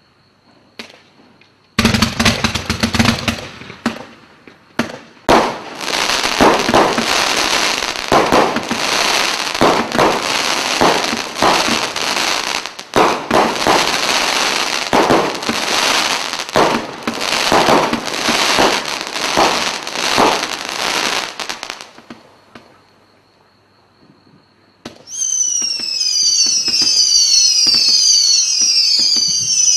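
Black Cat Centurion 105-shot single-ignition firework cake firing: rapid volleys of shots and crackling from about two seconds in until a short lull about three-quarters of the way through. It then gives a run of overlapping whistles falling in pitch near the end.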